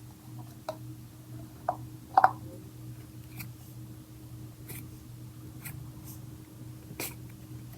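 Handling of a slime kit's storage container and its removable insert: a scattered series of light taps and clicks, the loudest pair about two seconds in, over a steady low hum.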